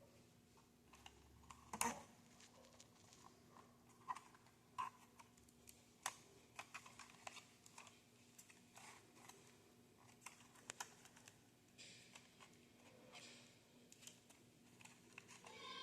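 Faint, scattered clicks and light taps of small objects being handled, at irregular intervals.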